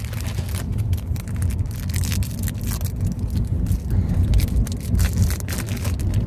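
Foil trading-card pack being torn open and handled, a rapid run of crinkling crackles and rustles over a steady low rumble.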